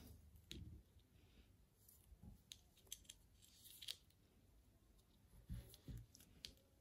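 Faint, irregular clicks and rustles of wooden knitting needles and yarn as a few stitches are knitted in garter stitch.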